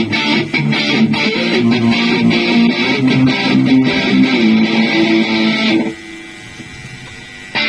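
Electric guitar played through a Line 6 POD Go multi-effects processor, chords strummed and picked. About six seconds in the playing stops and the sound drops to a quiet tail, and a new strum comes in near the end.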